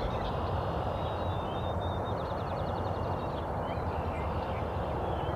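Small birds chirping, with one fast trill about two seconds in, over a steady low outdoor background rumble.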